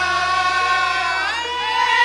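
Live Javanese music with singing: voices hold long notes and slide between pitches over a steady low hum.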